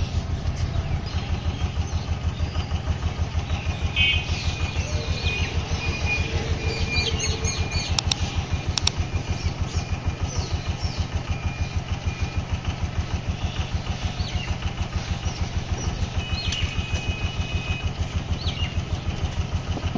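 A small engine idling steadily with a fast, even low chugging, like a motorcycle left running nearby.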